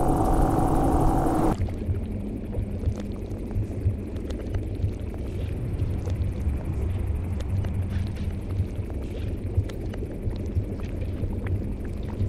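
Ambient sound-design drone: a held two-note tone cuts off about a second and a half in and gives way to a low, steady rumble with a faint hum and scattered faint crackles.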